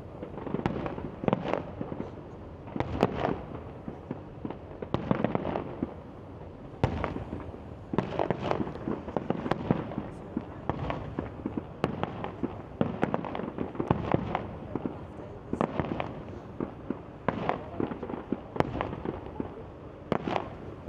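Fireworks going off in a continuous display: an irregular run of sharp bangs and crackling bursts, one or two a second, with a crackling haze between them.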